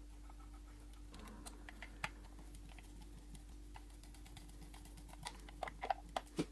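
Faint scattered clicks and light taps, such as small hard parts being handled, with a cluster of sharper clicks near the end, over a steady low hum.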